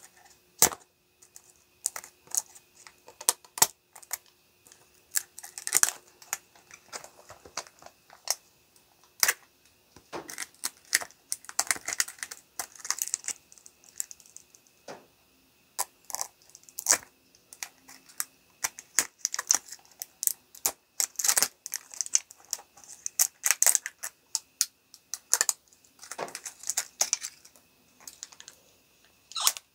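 Scissors snipping and scraping at the plastic shrink wrap of a cardboard box: many irregular sharp clicks from the blades, mixed with short crinkles of the plastic film.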